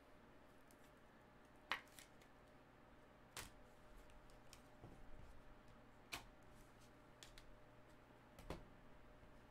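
Trading cards in rigid plastic toploaders being handled and set down: four sharp plastic clicks two to three seconds apart, the loudest about two seconds in, with fainter ticks between.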